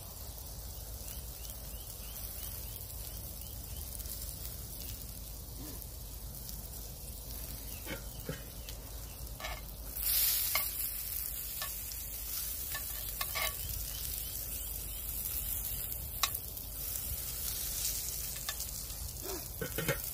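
Hot dog sausages sizzling in a small frying pan set on the embers of a campfire. About halfway through the sizzle flares up loudly as they are turned with metal tongs, with a few sharp clicks of the tongs against the pan.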